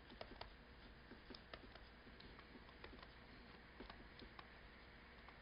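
Faint, irregular ticks and taps of a stylus on a tablet screen during handwriting, several a second.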